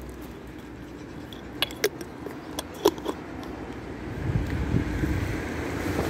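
A few sharp clicks and taps in the first half, then a low rumble of a passing road vehicle building from about four seconds in.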